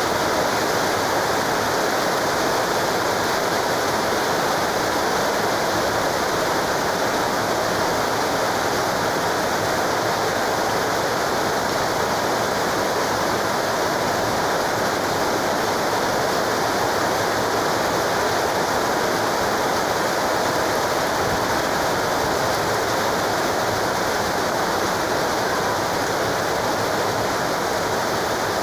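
Very heavy rain pouring down, a loud steady hiss that does not let up.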